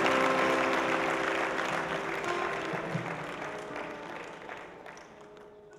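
Audience applauding, with music of held notes playing under the clapping; both fade away gradually toward the end.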